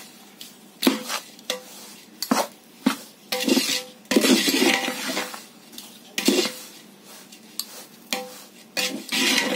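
A spatula scraping and knocking against the inside of a large metal pot as a thick mix of roasted semolina and vegetables is stirred and turned over for upma, in irregular strokes.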